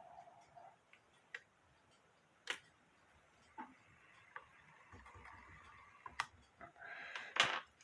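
A grandfather clock movement clicking at irregular intervals, about six sharp mechanical clicks with the loudest near the end, as its hand is turned to bring the strike train round to the half hour.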